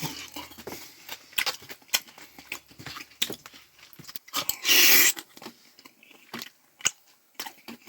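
Close-miked chewing of crisp fried tater tots, with crunching bites and wet mouth clicks scattered throughout, and one louder half-second noisy burst about five seconds in.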